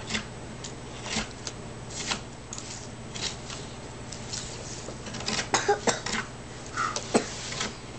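Carving knife cutting into a pine board: short scraping cuts about once a second, then a quicker run of sharper cuts and clicks about five and a half seconds in.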